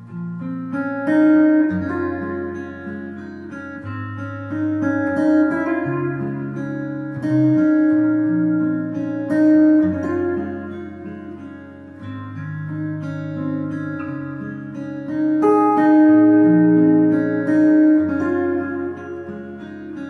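Gwood GMR C steel-string acoustic guitar played fingerstyle with a capo: a picked melody over a moving bass line. The sound is heard through its Sunrise S2+ soundhole pickup and K&K Pure Mini pickup, played through a Fishman Loudbox Mini amp.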